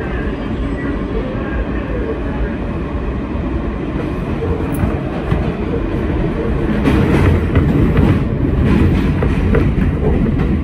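Kawasaki R160B subway car running at speed, with a continuous rumble of wheels on rail. The rumble grows louder about halfway through and picks up a quick run of clicks and knocks from the track, as the express runs through a station without stopping.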